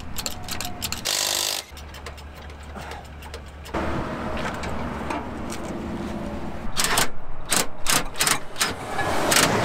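Hand tools and metal parts clicking and clanking as a car wheel is changed with a bottle jack: a run of quick clicks at the start, then a steady low hum, and a burst of sharp knocks and clanks in the last few seconds.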